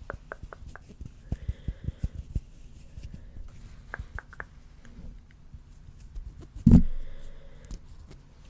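Soft clicks and taps made close to an ASMR microphone, quick and irregular at first, then sparser, with one much louder low thump about two-thirds of the way through.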